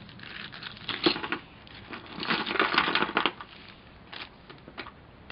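Small plastic parts bag crinkling and rustling as it is handled and shaken out, with grey resin model-kit parts clicking as they drop onto the cardboard box floor. A short rustle about a second in, then a longer, louder burst of crinkling for about a second from two seconds in.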